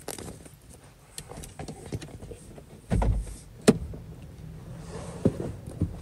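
Handling noises from a chicken-shaped handbag inside a car: scattered light knocks and rustles, a low thump about three seconds in, then a sharp click. A faint steady hum follows, with two more clicks near the end.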